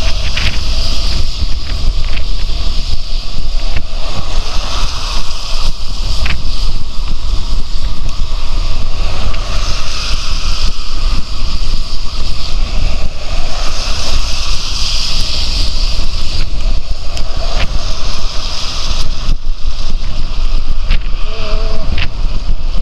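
Steady wind rush on the microphone of a bicycle camera riding on a wet road, with tyre hiss and motor traffic passing close alongside.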